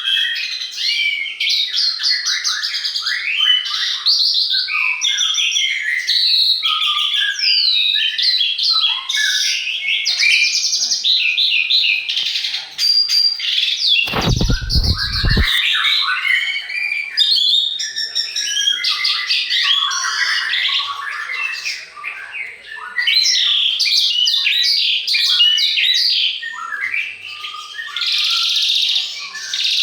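A dense chorus of songbirds, many overlapping chirps, whistles and rapid trills with no gap. About halfway through there is a brief low rumble lasting over a second.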